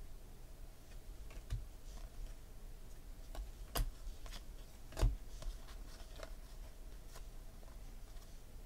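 Glossy baseball cards being flipped through and slid off a stack by hand: scattered light clicks and rustles, with two sharper snaps about four and five seconds in.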